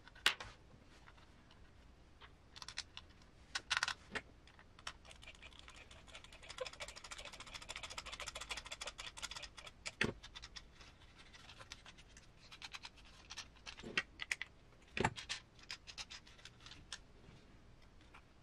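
Small plastic kit parts and screws being handled and worked with a hand tool on a workbench: scattered light clicks and taps with a few sharper knocks, and a stretch of quick, close-together ticking and scratching around the middle.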